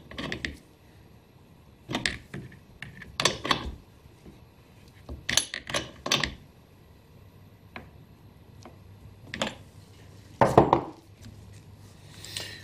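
Scattered metal clinks and knocks from a T-handle spark plug wrench turning a freshly gapped spark plug into a Stihl MS250 chainsaw's cylinder. The clinks come in short groups a second or two apart, and the loudest is a duller knock near the end.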